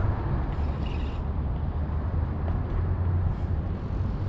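Steady low rumble of outdoor background noise. No distinct event stands out.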